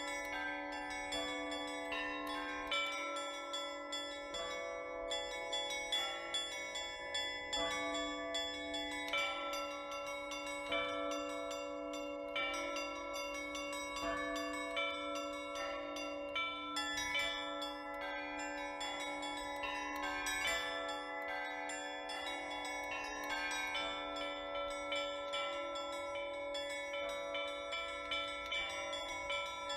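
Russian Orthodox church bells rung by hand in a continuous peal (trezvon). Smaller bells are struck in quick, rhythmic patterns over the steady hum of a larger bell.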